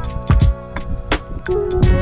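Background music with drum hits over held tones.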